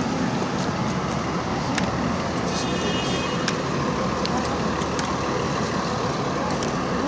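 City bus running, a steady engine rumble and road noise, with a few light clicks and a brief high-pitched squeal near the middle.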